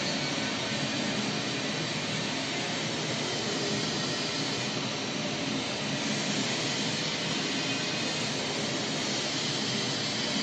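Turntable pallet wrapping machine running: a steady mechanical noise that holds evenly throughout as the turntable turns the load and stretch film is wound on.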